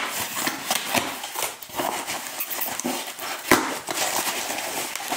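Cardboard shipping box being torn open by hand: ripping and rustling of the cardboard flaps and tape, with scattered sharp cracks, the loudest about three and a half seconds in.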